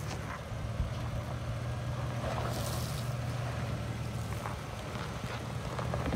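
Toyota Tacoma pickup's engine running at a low, steady pitch as the truck crawls slowly over a rocky dirt trail, with a short hiss of noise about two and a half seconds in.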